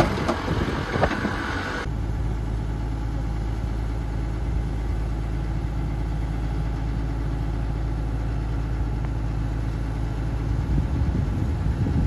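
Farm machinery engines running steadily at a low, even pitch: a combine harvester with its grain-unloading auger working beside an idling tractor. The first two seconds are a different, busier take of the tractor with voices, cut off abruptly.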